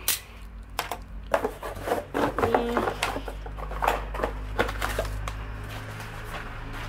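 Light clicks, taps and rubbing from handling small plastic cosmetics (eyeliner pencils and bottles) on a tabletop and moving the handheld camera, dense for the first few seconds and then thinning out over a low steady hum.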